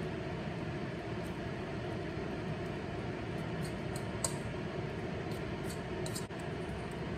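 Steady whooshing hum of a fan-like machine, unchanging throughout, with a few faint light clinks, the clearest a little past halfway, as a utensil scrapes potato batter out of a metal bowl.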